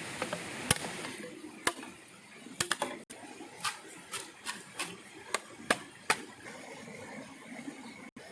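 An irregular series of about a dozen short, sharp knocks over faint background noise.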